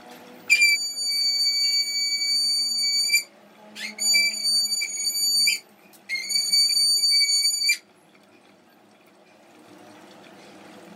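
Pressure cooker whistling three times in a row: a loud, steady high whistle, the first about three seconds long and the next two shorter, with brief breaks between.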